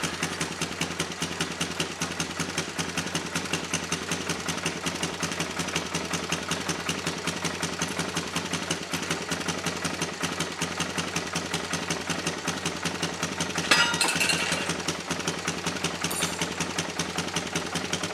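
2003 Suzuki LT-Z400 ATV's single-cylinder four-stroke engine idling steadily on choke just after a cold start, with an even firing pulse. It swells briefly louder about fourteen seconds in.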